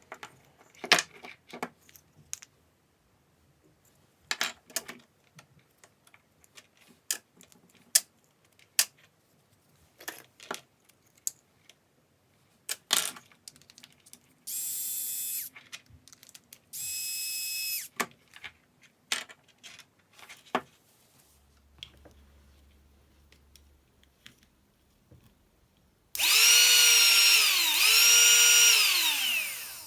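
Clicks and taps of small parts being handled. About halfway in, a small battery power-tool motor gives two short whirs, and near the end it makes a longer, louder run whose pitch dips twice before falling away as it winds down.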